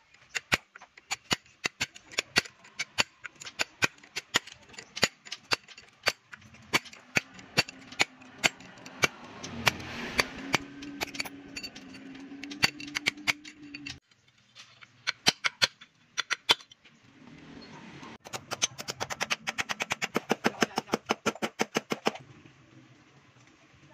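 Hammer strikes on a metal drift driving the new steering-stem bearing into place on a Honda XR150: a steady run of sharp metallic taps, about two to three a second, then a pause and a faster run of taps near the end.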